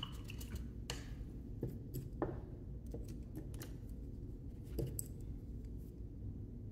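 A few light clicks and knocks of paint supplies handled on a tabletop, as a plastic acrylic paint bottle is picked up and moved, over a low steady hum.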